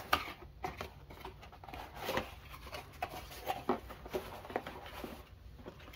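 Cardboard box being opened and handled: irregular scraping and rustling of the cardboard flaps, with scattered light knocks and taps as the contents are moved.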